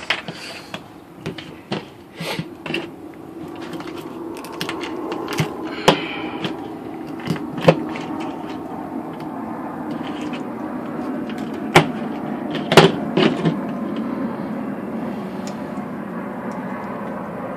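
Scattered sharp knocks and clicks of a knife and tools on a plastic table while a catfish is being cut and cleaned, over a steady low hum.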